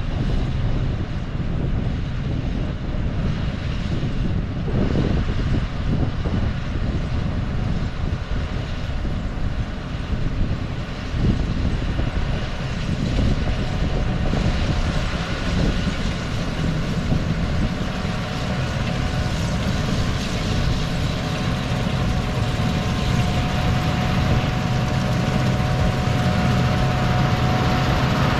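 Combine harvester running steadily, a continuous engine and machinery noise heavy in the low end, with a steady hum that grows stronger about two-thirds of the way through.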